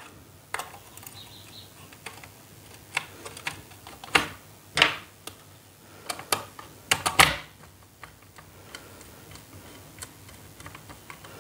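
Irregular small clicks and scrapes of a screwdriver working a wire into a plastic modular switch's screw terminal and tightening it.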